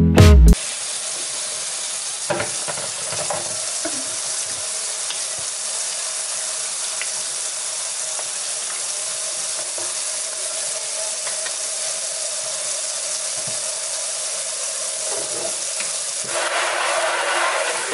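Steady hiss with a few light knocks around a plastic bucket in a stainless steel sink; about sixteen seconds in, water starts spraying from a hose into the plastic mop bucket, a louder rushing splash.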